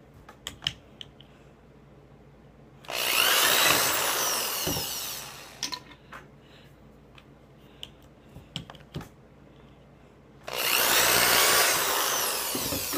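Craftsman hand drill boring through plastic bottle caps held in a wooden jig. It runs twice, for about two and a half seconds each time, about three seconds in and again near the end, with a whine that bends in pitch as the bit cuts. Small clicks and taps come between the runs.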